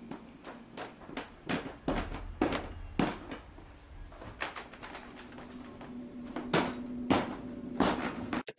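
Footsteps stomping on carpeted wooden stairs: a dozen or so separate heavy thuds at uneven intervals, roughly one every half second.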